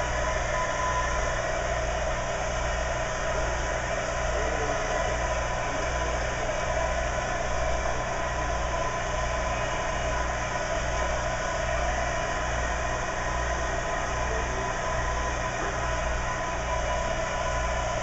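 Handheld hair dryer running steadily, drying a child's hair.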